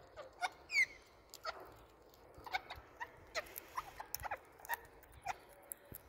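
Indian ringneck parakeets giving a string of short, soft squeaky chirps while husking sunflower seeds, with small clicks of beak on seed shell. The loudest is a sharp high squeak just under a second in.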